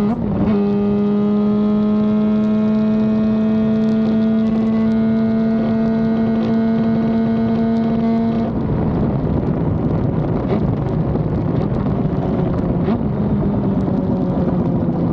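Norton RCW588 twin-rotor Wankel rotary engine heard on board at full throttle: a steady, smooth note climbing slowly in pitch after a brief break just after the start, as from an upshift. About eight seconds in the throttle is closed and the note turns rough and uneven with a few sharp pops, slowly dropping in pitch as the bike slows for a corner.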